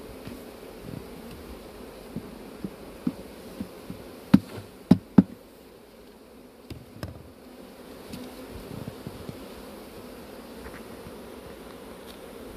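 Honeybees buzzing steadily around an opened hive. A series of sharp knocks sounds over it, the three loudest close together about four to five seconds in.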